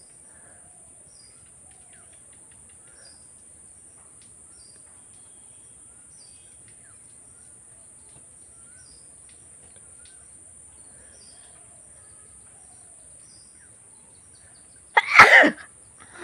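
A woman's single loud, sudden sneeze about 15 seconds in, set off by tickling the inside of her nose with a thin bamboo twig. Before it there are only faint bird chirps over a steady high whine.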